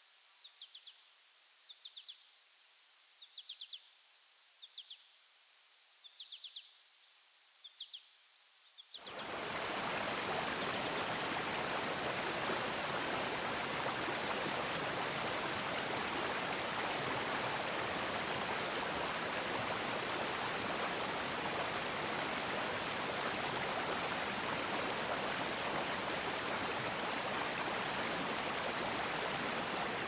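Stream rushing over rocks and small cascades, a loud steady rush of water that starts abruptly about nine seconds in. Before it, faint short bird chirps repeat about once a second over a thin high steady tone.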